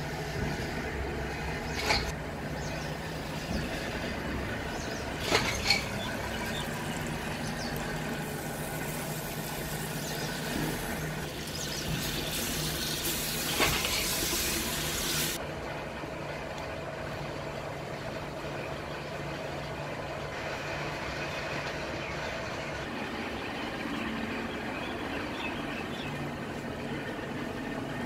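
Wooden spoon stirring spinach in a clay cooking pot, knocking against the pot a few times, with a hiss that cuts off about halfway through, all over a steady low hum.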